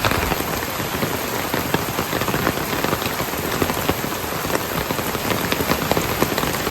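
Steady rain falling, a dense hiss with many separate drop hits heard throughout.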